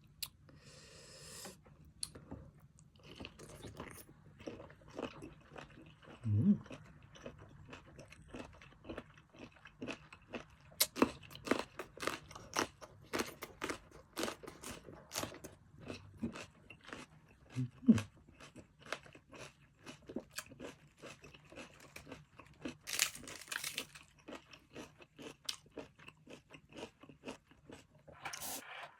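Close-miked chewing of blanched cuttlefish: a long run of wet, crunchy mouth clicks and smacks, with two brief low hums, about six seconds in and again near eighteen seconds.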